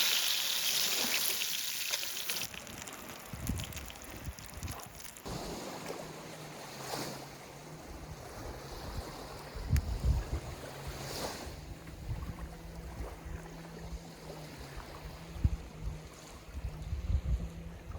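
Sizzling from the frying fades out over the first couple of seconds. From about five seconds in, a steady low motor hum carries on, shifting slightly in pitch, under wind buffeting the microphone and water sounds.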